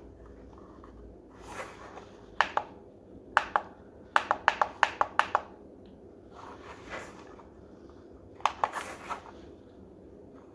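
Buttons on a La Crosse Technology alarm clock clicking as they are pressed while the time is being set: two pairs of clicks, then a quick run of about eight presses, then a short cluster of about four more near the end, with soft handling rustles between them.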